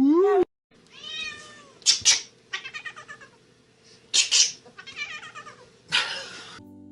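A cat meowing several times in short, varied calls, some rising and falling in pitch, some broken into quick pulses.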